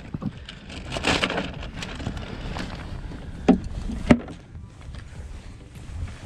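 Plastic cooler being handled: a plastic bait bag rustles inside it, then two sharp knocks about half a second apart as the cooler lid is shut.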